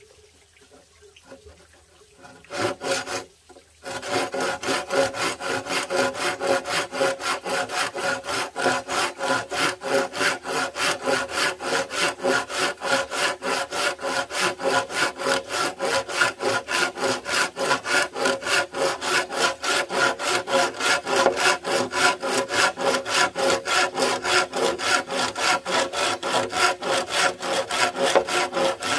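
Hand saw cutting through wood in quick, even back-and-forth strokes, about three to four a second. It starts properly about four seconds in, after a short burst of sawing.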